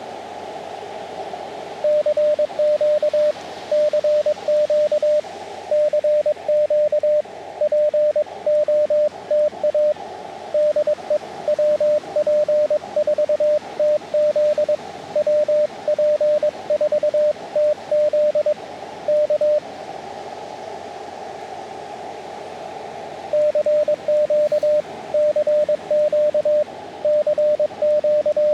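Morse code (CW) from an Elecraft KX2 portable transceiver: one steady tone keyed on and off in dots and dashes over receiver hiss in a narrow CW filter. The keying starts about two seconds in, breaks off for a few seconds of hiss alone around the two-thirds mark, then resumes.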